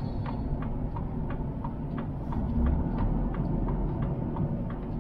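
Inside a Volvo truck's cab while reversing: a low engine rumble with a steady ticking, about three ticks a second.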